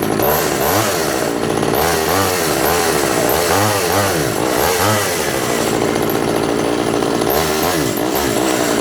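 Efco 134 two-stroke top-handle chainsaw running and being revved up and back down several times, its engine pitch rising and falling between lower idling stretches.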